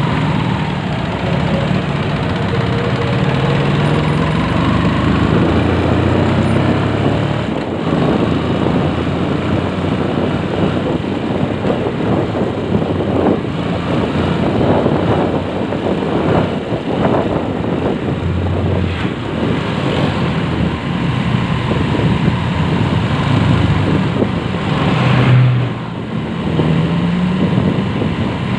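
Motorcycle engine running while riding, its pitch rising and shifting with changes in speed, under a steady rush of wind and road noise.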